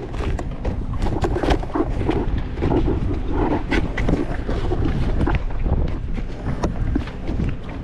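Wind buffeting the microphone over a steady low rumble, with many scattered clicks and knocks.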